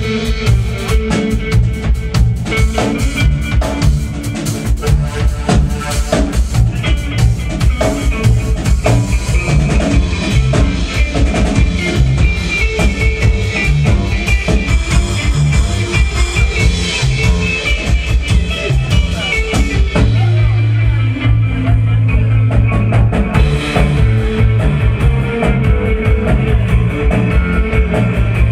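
Live band playing an instrumental passage: a drum kit keeps a steady beat under electric guitars and bass.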